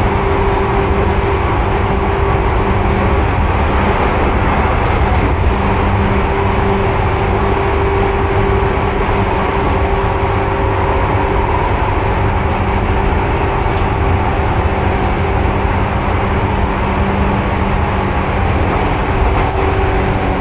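Onboard running noise of a Seibu 2000 series electric train, heard from inside its motor car: steady wheel-on-rail rumble with the hum and whine of the field-chopper-controlled traction motors and gears, holding an even pitch.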